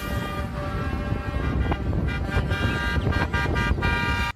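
Loud, steady horn blast with many overtones, held throughout and cut off abruptly near the end, with a few sharp clicks over it.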